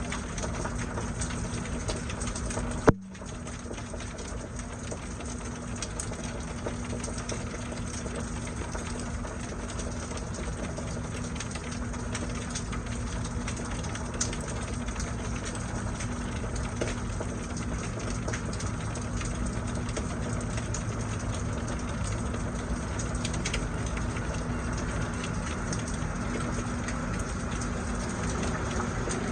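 Steady rain shower falling, over a low steady mechanical hum. A single sharp click comes about three seconds in.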